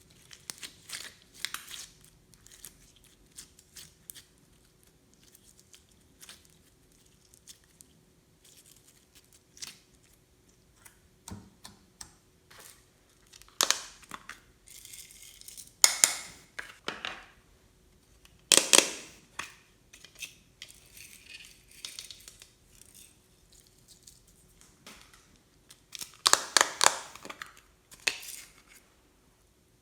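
Irregular crinkling and crackling from slime being worked by hand with crunchy beads and small plastic decorations mixed in. There are several louder crackly bursts around the middle and a cluster near the end.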